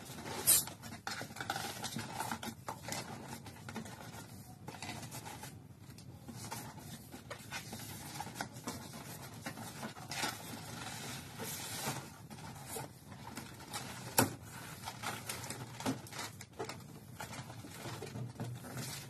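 Cardboard scraping and rubbing as a heavy boxed stand mixer is worked up out of its tight shipping carton, with scattered knocks and rustles throughout.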